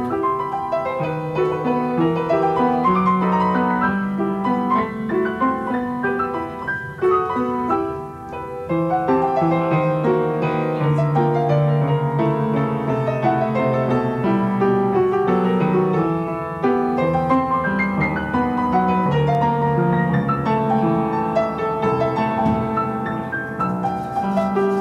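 Background piano music, a continuous flow of notes that briefly drops in level about eight seconds in.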